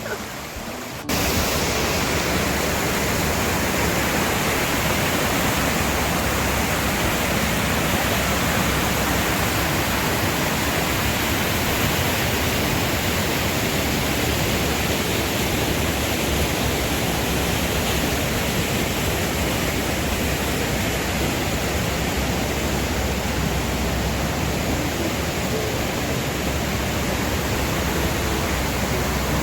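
Rushing river rapids: a steady, loud rush of water that starts abruptly about a second in and holds even throughout.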